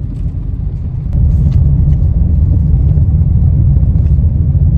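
Low, steady rumble of a car driving, heard inside the cabin, stepping up louder about a second in.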